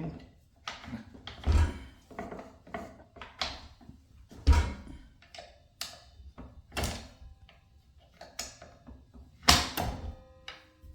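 Metal clicks and knocks as an Allen key tightens the blade bolt on a Ryobi 10-inch miter saw while the spindle lock is held. Three louder thunks stand out: about a second and a half in, four and a half seconds in, and near the end.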